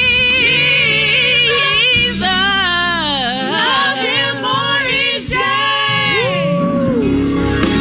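Gospel worship singing: a solo voice sings long wordless runs that bend up and down in pitch with vibrato, over sustained low accompaniment chords.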